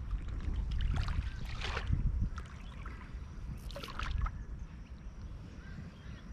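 Wind rumbling on the camera microphone at the water's edge, easing off in the second half, with a few short rustling or splashing noises about one, two and four seconds in.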